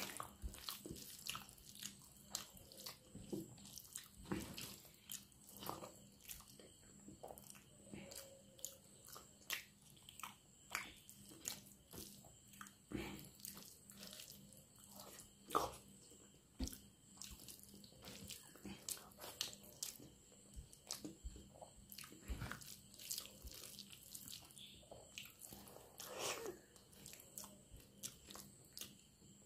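Close-up eating sounds: a bare hand mixing rice with runny potato dal and lifting it to the mouth, with chewing and wet mouth sounds, heard as many short, irregular clicks.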